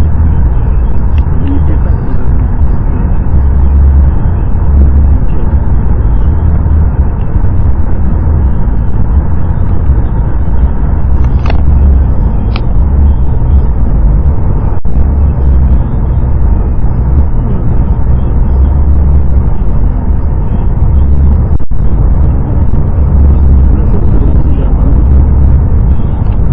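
Loud, steady low rumble of a car driving, heard from inside the cabin: engine and road noise.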